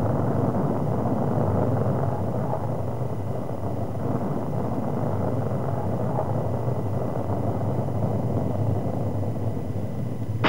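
Large rocket's engines at lift-off: a loud, steady rumble, easing slightly after the first couple of seconds.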